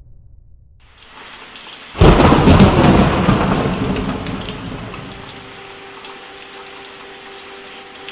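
Thunderstorm: rain falling, then a sudden loud thunderclap about two seconds in that rumbles away over the next few seconds, leaving steady rain.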